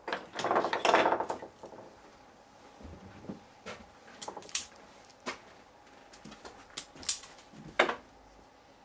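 Hand tools clattering on a metal-topped workbench as they are picked up, then a string of short sharp clicks from a spring-loaded wire stripper working the ends of a lamp's electrical cord, with one louder snap near the end.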